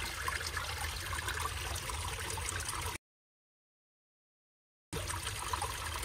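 Creek water running and trickling over rocks, a steady rushing sound under a low rumble. The audio cuts out to dead silence for about two seconds in the middle, then the water sound returns.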